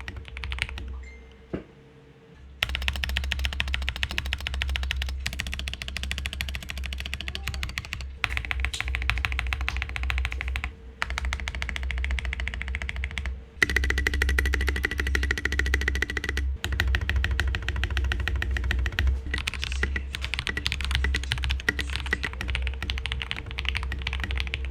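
Keycool KC84 mechanical keyboard, lubed Akko switches with Taihao doubleshot PBT keycaps, typed on quickly in long runs of keystrokes. There is a pause of about a second and a half near the start and a few brief breaks later.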